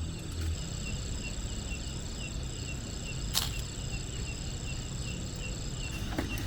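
Insects chirping in an even, repeating rhythm, over a steady high buzz that stops near the end, with a low rumble underneath. A single sharp click about halfway through.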